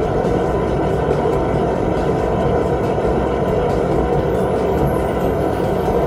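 High-pressure drain jetter running steadily, its hose spraying water inside a drain pipe to flush out built-up grime: an even, continuous rushing noise.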